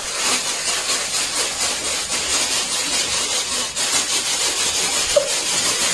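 Steady, loud hissing noise with no clear pitch, with one short squeak about five seconds in; it cuts off suddenly at the end.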